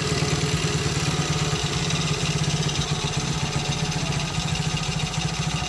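Small motorcycle engine idling steadily with an even, fast throb, running on its freshly rewired ignition after starting at once.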